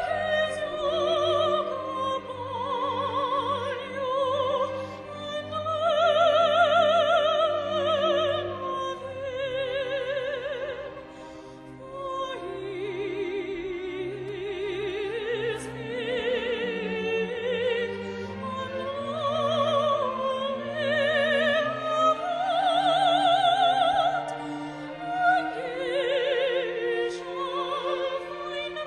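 A classical solo voice singing a sustained, slow melody with strong vibrato, accompanied by a string orchestra.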